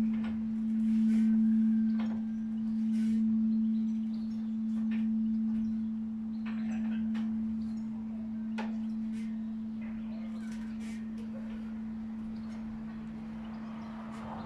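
The hum of large bronze church bells (about 450 kg and 380 kg) dying away after the ringing has stopped. It is one low, steady tone that swells and fades about every two seconds and slowly gets quieter, with scattered faint clicks over it.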